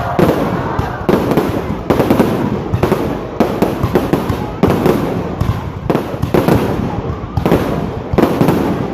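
Fireworks going off in a continuous barrage: sharp bangs about one or two a second over a steady crackle.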